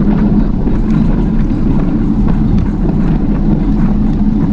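Steady, loud low rumble of wind and road noise while riding along on a bicycle, with faint light clicks scattered through it.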